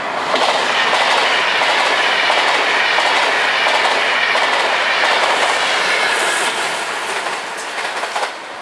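An electric regional train of double-deck coaches passing close by: a loud, steady rush of wheels on the rails with clickety-clack over the rail joints. It sets in sharply at the start, eases off over the last couple of seconds as the train draws away, and a few sharp clicks come just before the end.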